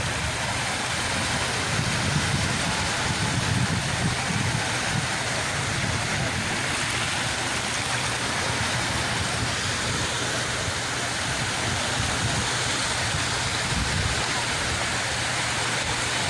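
Steady rush of sea water and waves with a low rumble underneath, unbroken throughout.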